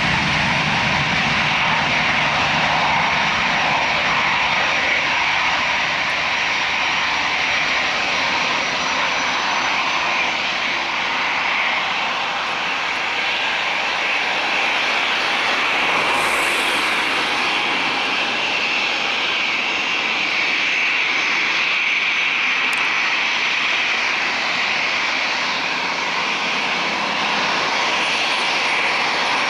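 Boeing 757-200 jet airliner's two engines at high power on its takeoff roll: a loud, steady rush of jet noise with a high whine running through it.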